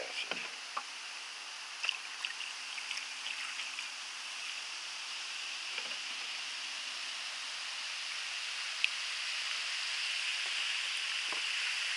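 Diluted muriatic acid fizzing steadily as it dissolves the calcite around a tremolite cluster, a fine hiss of carbon-dioxide bubbles that grows slowly louder, with a few small clicks in the first three seconds.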